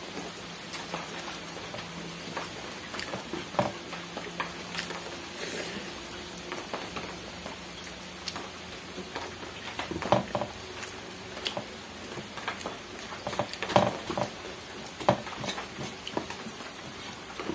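A person eating rice by hand from a steel plate: irregular chewing and smacking mouth clicks in small clusters, over a steady faint hiss.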